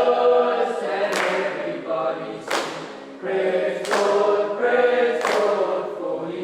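A group of boys singing together in chorus, unaccompanied, in long held phrases that break about every second and a half, with a short dip in loudness around three seconds in.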